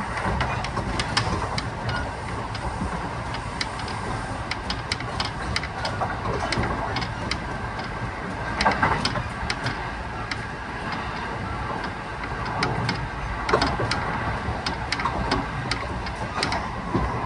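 Kintetsu 1620-series electric train heard from inside the car while running, a steady rumble of wheels on rail with frequent sharp clicks and rattles.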